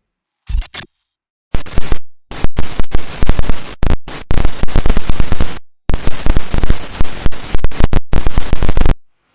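A brief burst about half a second in, then a long, rapid run of loud, sharp cracks and pops, broken by a few short gaps.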